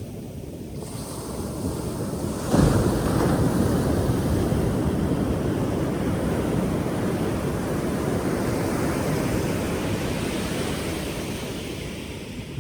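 Ocean wave breaking on the shore: the surf swells, crashes suddenly about two and a half seconds in, then rushes on and slowly fades.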